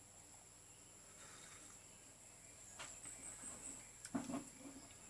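Steady high-pitched insect drone throughout, with a few light clicks and a short low sound about four seconds in as a cup of hot herbal tea is handled and sipped from.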